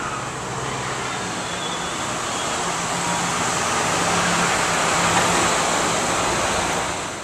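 Street traffic: a motor vehicle's engine running close by over road noise, growing louder about five seconds in, then stopping abruptly near the end.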